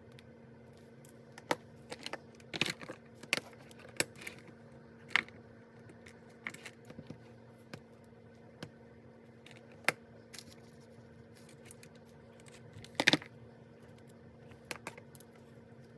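Irregular sharp clicks and taps of stationery being handled on a desk, the loudest a cluster about 13 seconds in, over a steady low electrical hum.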